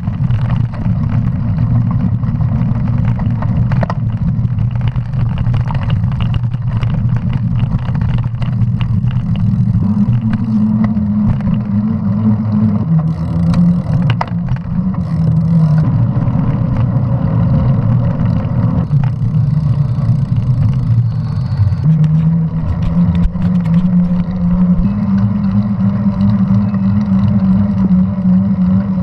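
Mountain bike rolling on pavement: the tyres hum, stepping up and down in pitch as the speed changes, over steady wind rush on the microphone, with scattered small rattles and knocks from the bike.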